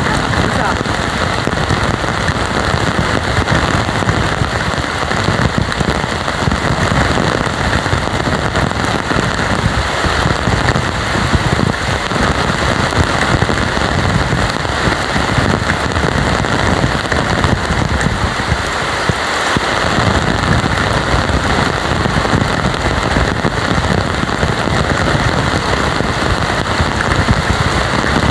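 Heavy rain pouring down, a steady, dense patter and crackle of drops with no let-up.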